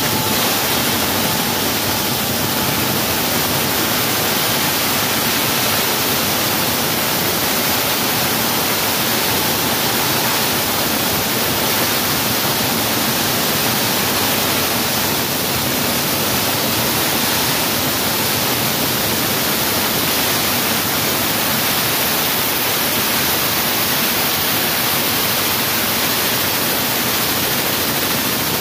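Wall saw cutting into a concrete wall: a loud, steady rushing noise that holds unchanged throughout.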